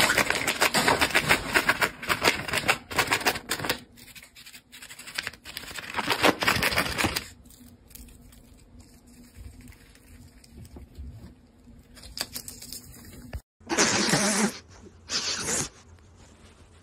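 Rosy-faced lovebird tearing and crinkling paper with its beak, cutting strips the way lovebirds gather nesting material; the crackle comes in spells, busiest in the first few seconds and again around six to seven seconds. After a sudden break near the end there are two short loud sounds.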